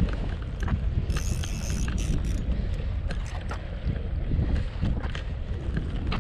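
Wind buffeting the microphone as a steady low rumble, with scattered light clicks and a brief hiss about a second in.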